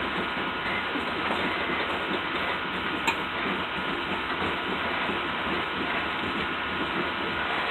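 Gravel hopper cars rolling slowly past on the rails, a steady noise of wheels on track and rattling car bodies, with one sharp clank about three seconds in.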